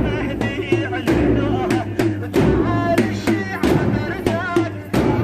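Music of a mourning procession: loud, irregular drum beats with a wavering sung melody over them.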